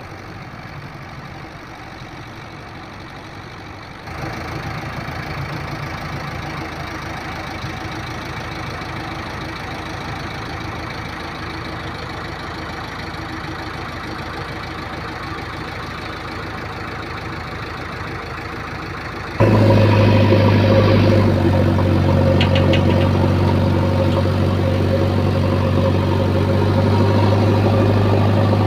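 JCB 3DX backhoe loader's diesel engine running steadily. Its loudness steps up abruptly about four seconds in, and again about two thirds of the way through, where a strong, steady low drone takes over.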